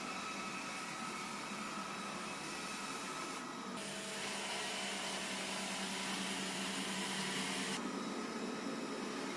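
Xiaomi robot vacuum running its suction fan: a steady whirring hiss with a hum beneath it. After a brief dip about three and a half seconds in, it turns louder and hissier for about four seconds, then drops back.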